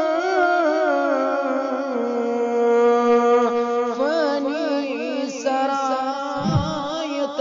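A man's voice singing a devotional nasheed in an ornamented melody, gliding between notes and holding some long, over a steady humming drone. A brief low thump comes near the end.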